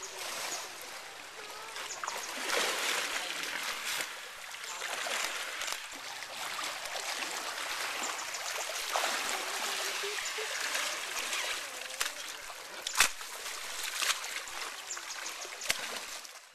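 Water splashing and churning as two hippopotamuses spar in it, swelling and easing as they move, with a couple of sharp smacks near the end.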